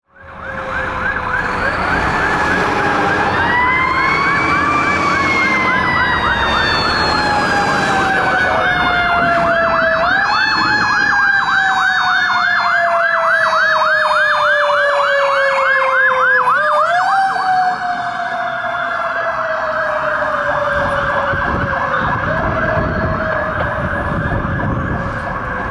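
Seagrave fire engine responding with its sirens on: a fast warbling yelp runs the whole time, over a lower wailing tone that falls slowly and is driven sharply back up twice.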